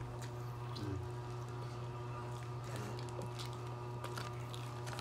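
Quiet handling sounds of a meal being eaten: scattered light clicks of a plastic spoon and fork and of fried chicken being handled, over a steady low hum. Gravy is poured from a small plastic cup at the start.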